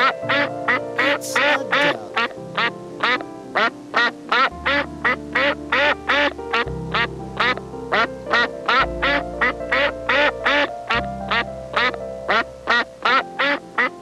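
A duck quacking over and over in a fast, even rhythm, about two to three quacks a second, over background music.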